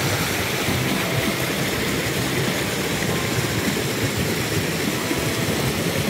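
Mountain stream water rushing steadily, with a low, uneven rumble underneath.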